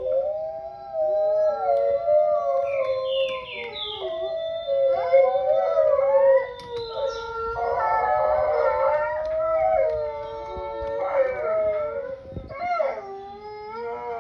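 A wolf pack howling in chorus: several long howls overlap at different pitches, sliding up and down, with short higher rising yips a few seconds in.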